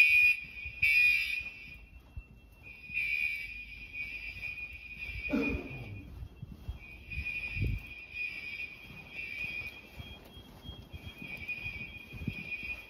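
A fire alarm sounder gives a high electronic tone that switches on and off in a repeating pattern. It is loud for the first second and a half, then fainter. A short falling squeak comes about five seconds in, and a low thump near eight seconds.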